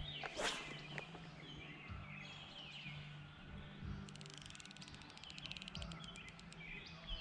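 Wild birds singing, with repeated short falling whistled phrases. From about four seconds in, a fast high ticking trill runs for about two seconds.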